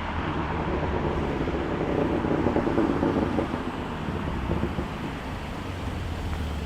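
BMW F80 M3's twin-turbo straight-six exhaust, freshly fitted with a VRSF single mid-pipe that deletes the secondary cats and mid resonator, heard from outside as the car drives, a deep rumbling note without the stock rasp that swells about two seconds in and then eases. Wind buffets the microphone.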